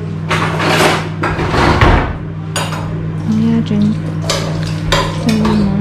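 Dishes and cutlery clattering as food is served onto a plate: scattered knocks and clinks of plates, bowl and serving utensils, over a steady low hum.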